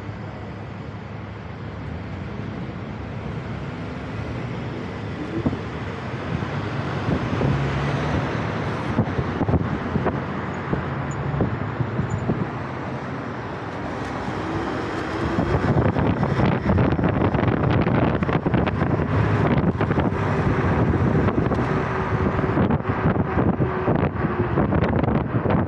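Road and traffic noise as a vehicle pulls away from a stopped queue and picks up speed. From about halfway through it grows louder, with gusty wind buffeting the microphone.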